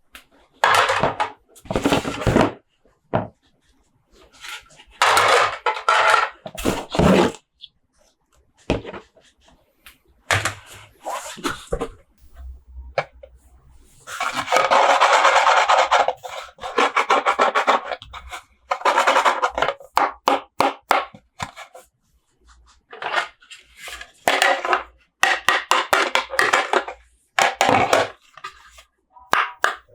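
Hands handling toy packaging and plastic toys: a run of irregular scraping and rubbing sounds, some brief and some lasting a few seconds, with one longer, denser stretch of rustling about halfway through.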